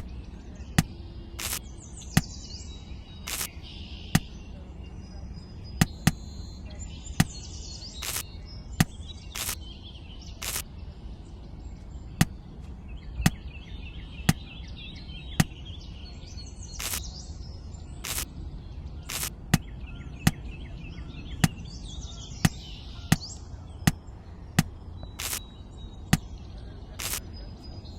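Sharp taps repeating at uneven spacing, about one to two a second, over a low steady rumble, with birds chirping in the background.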